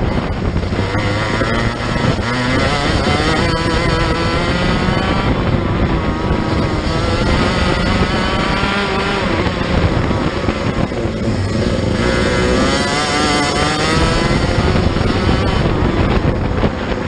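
Racing kart engine at high revs under racing load, its pitch climbing again and again as the kart accelerates and dropping back as it slows.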